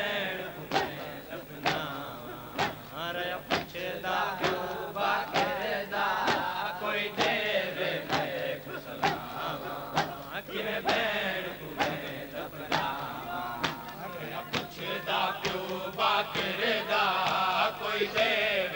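Men's voices chanting a noha (Shia lament) together, with sharp slaps of hands on bare chests (matam) at about one beat a second.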